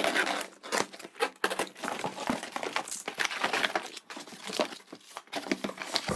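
Cardboard box being cut open and unpacked: a box cutter slitting the tape, cardboard flaps and packing pieces handled, and plastic wrap crinkling. The result is a busy, irregular run of rustles, scrapes and knocks.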